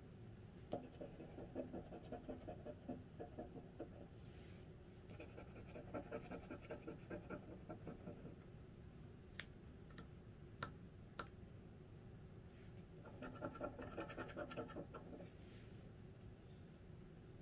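A flat metal tool scraping the coating off a paper scratch-off lottery ticket in quick, short strokes. It comes in three spells: near the start, around the middle, and again late on. A few sharp ticks fall in the pauses.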